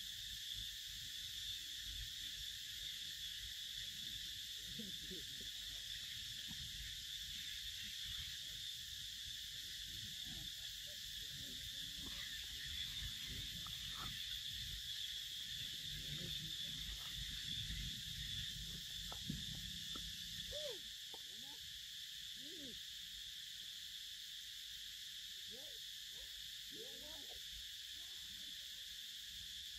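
Steady high-pitched drone of an insect chorus, with low rustling and handling noises over the first two-thirds and a few short low calls that rise and fall in the last third.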